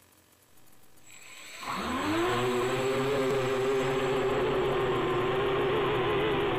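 Quadcopter's electric motors and propellers spinning up: the pitch rises quickly a little under two seconds in, then holds a loud, steady whine that wavers slightly as the throttle is held.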